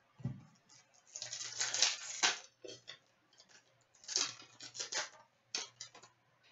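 Trading card pack wrapper crinkling and hockey cards being handled, in bursts of rustling with sharp clicks, with a soft thump near the start.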